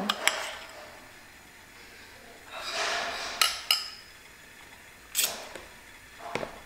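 A person eating: mouth clicks and smacks while chewing, with a few audible breaths through the nose.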